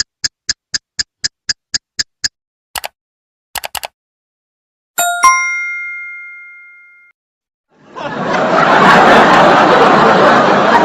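A quick run of short pitched ticks, about four a second, then a single bell-like ding that rings out for about two seconds, then a crowd talking.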